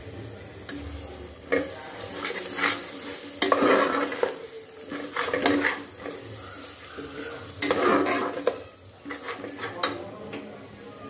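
A steel spoon stirring and scraping frying masala in an aluminium pressure cooker, in irregular bursts of strokes, with the masala sizzling underneath.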